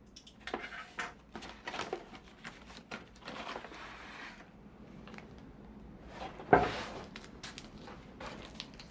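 Packages being handled and opened by hand: light rustling, small clicks and taps, with one louder knock about six and a half seconds in.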